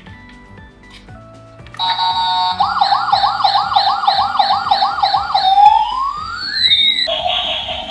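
Toy police car's electronic siren, starting about two seconds in. It holds a steady tone, then warbles fast, about three times a second, glides for a moment, and near the end switches to a different pulsing siren tone.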